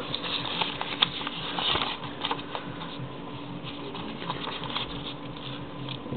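Origami paper rustling and crinkling in the hands as it is folded and creased, with irregular soft crackles and one sharper click about a second in.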